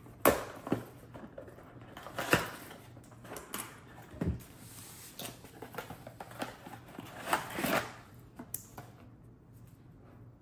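Handling noise of a small cardboard box being unpacked: sharp taps and knocks of the box against the table, with scraping and rustling as a battery charger and its cord are pulled out. A dull thump comes about four seconds in and a longer rustle near the end.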